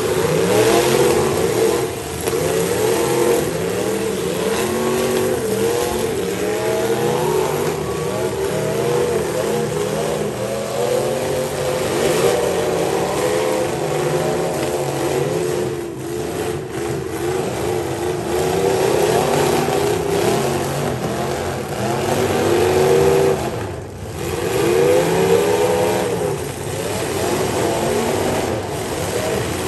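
Several demolition derby cars' engines revving hard, over and over, as the cars spin and ram in the dirt arena. Their pitch keeps rising and falling, with several engines heard at once.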